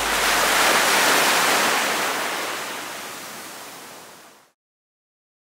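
Small waves breaking and washing up a sand beach, a steady surf hiss that fades out and is gone about four and a half seconds in.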